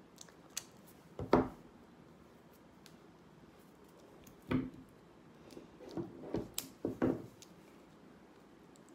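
A pack of game cards being worked open by hand, with short rustles and scrapes of card and wrapping. There is one just after a second in, another around four and a half seconds, and a quick cluster near the end.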